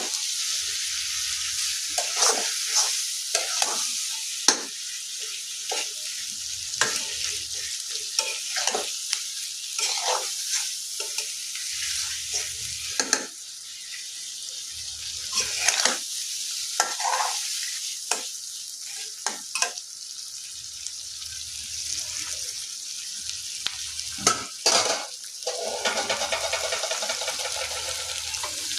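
Shrimp frying and sizzling in hot oil for a spicy bhuna, with a spatula stirring and scraping the pan in repeated short strokes.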